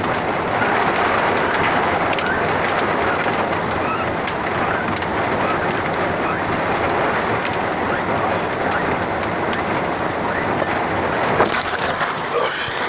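Hailstorm: heavy rain and hail pelting down, a steady dense patter with many sharp ticks of hailstones striking surfaces.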